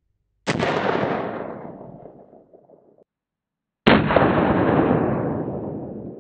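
Two slowed-down gunshots from a Smith & Wesson Governor .410 revolver firing buckshot. Each is a sudden blast fading out over two to three seconds, the second duller than the first.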